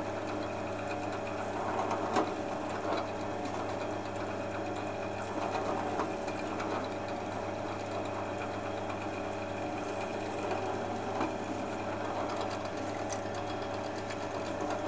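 Benchtop pillar drill running steadily with a 3 mm bit, drilling out the holes in a 3D-printed plastic post, with a few brief louder moments as the bit cuts in.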